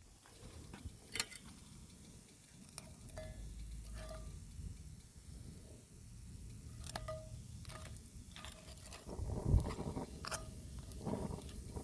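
Cookware and utensils being handled: scattered clinks and knocks, several with a short metallic ring, and a louder clatter about nine seconds in.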